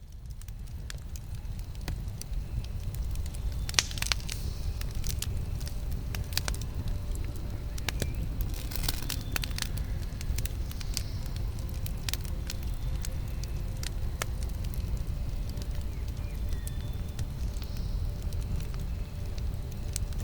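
Campfire burning: a steady low rumble under frequent crackles and pops of burning wood, busiest about 4 and 9 seconds in. Fades in over the first couple of seconds.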